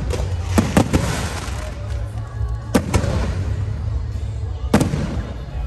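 Fireworks going off: sharp bangs in quick pairs, two about half a second in and two near three seconds, then a single bang near the end, over a steady background din.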